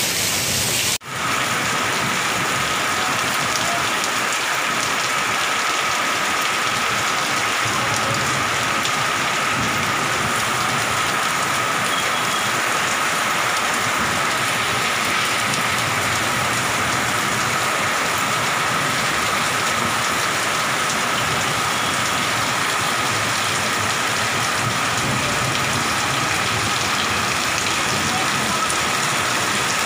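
Heavy rain pouring steadily onto a wet street, a dense even hiss. It cuts out for a moment about a second in.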